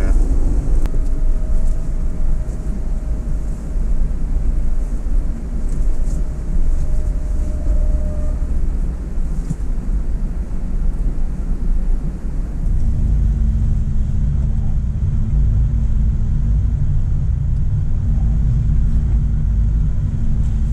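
Steady low road and engine rumble inside a moving Cadillac Escalade's cabin, growing louder with a low hum about thirteen seconds in.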